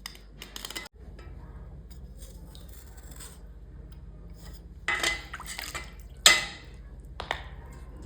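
Small metal kitchen items being scraped and knocked together in irregular bursts, with a sharp clank a little after six seconds in, over a steady low hum.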